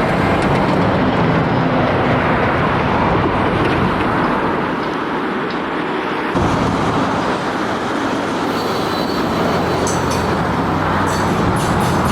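Small rail maintenance vehicle running on the track, its engine droning steadily, with a shift in the sound about six seconds in and faint high squeaks near the end.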